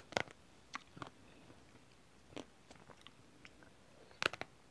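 Bites and chewing on a pink ruby-chocolate Magnum ice cream bar: a handful of short sharp cracks and mouth clicks from the chocolate shell, the loudest pair just after four seconds in.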